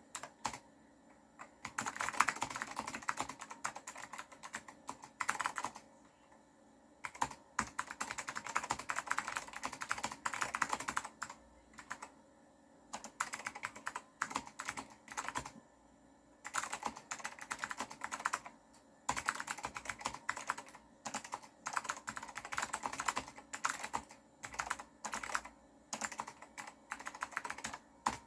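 Apple M0116 keyboard with blue Alps switches being typed on: fast runs of crisp clicky keystrokes in bursts of a few seconds, with short pauses between them.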